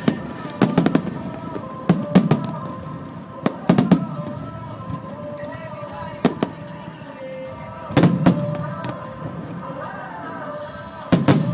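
Aerial fireworks shells bursting overhead: sharp bangs, often in pairs, every second or few, each followed by a rumbling echo. Music plays underneath.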